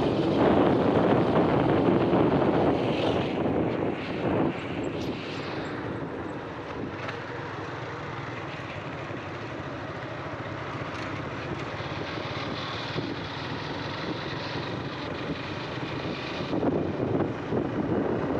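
Motorcycle riding along a road, its engine drone mixed with wind rushing past the microphone; louder in the first few seconds and again near the end.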